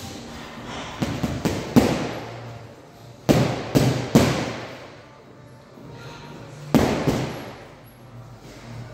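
Boxing gloves punching a hanging heavy bag: quick combinations of sharp smacks with a short echo, about four in a row a second in, three more around three to four seconds, and a single one near seven seconds.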